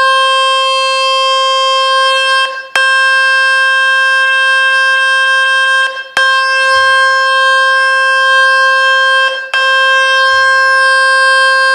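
Smartphone loudspeaker at full volume playing the Fix My Speakers water-ejection tone: a loud, steady, buzzy single-pitched drone that cuts out briefly three times. The tone vibrates the speaker to drive water and dust out through the grille.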